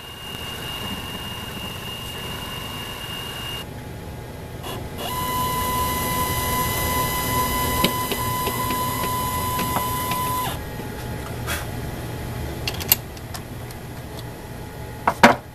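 Mini mill's spindle motor running with a steady whine. It drops out briefly, then runs louder for about five seconds before settling back. Near the end come a few sharp metal clicks as the rotary table and chuck are handled.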